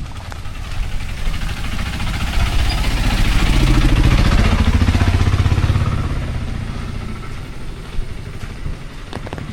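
A motor vehicle passing close by on the road: its engine grows louder to a peak about four seconds in, drops in pitch as it goes by, then fades away.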